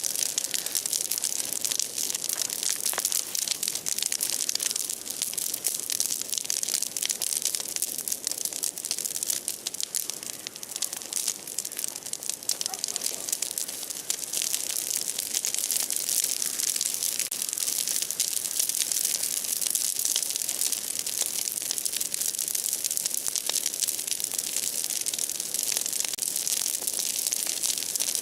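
Large bonfire of broken tree branches burning, with a dense, continuous crackling of burning wood.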